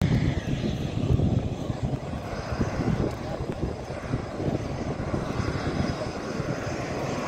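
Saab JAS 39 Gripen's single turbofan engine heard at a distance as the jet taxis in, a continuous low rumble. It swells unevenly in the first couple of seconds, then settles steadier.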